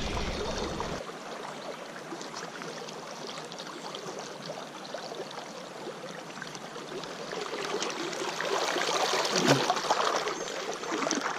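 Creek water flowing and trickling, a steady rushing that grows a little louder near the end.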